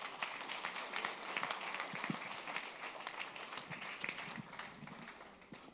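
Congregation applauding, many hands clapping together.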